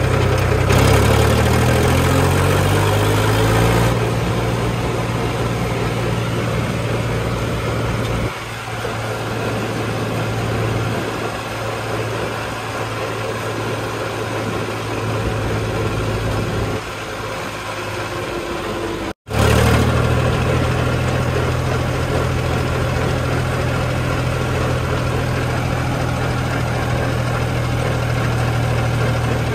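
Mahindra tractor's diesel engine running while the tractor is driven, its pitch climbing over the first few seconds. The sound cuts out abruptly for an instant about 19 seconds in, after which the engine runs at a steady pitch.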